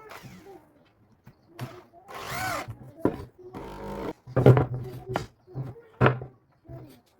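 Woodworking sounds: a small power tool, likely a drill, runs briefly with a whine that rises and falls, then several sharp knocks of wood.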